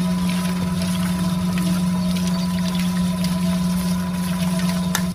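Small electric motor of a miniature model concrete mixer running at a steady speed with a constant hum, turning the drum with its wet mix. The hum cuts off suddenly at the very end.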